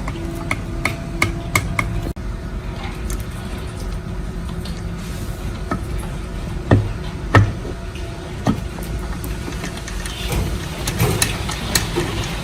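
Metal parts and hand tools tapping and clinking during engine repair work, with a few sharper knocks about seven seconds in, over a steady low hum.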